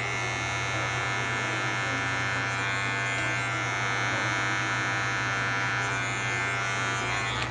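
Electric hair clipper running with a steady buzz as its blade cuts short hair at the nape during a fade.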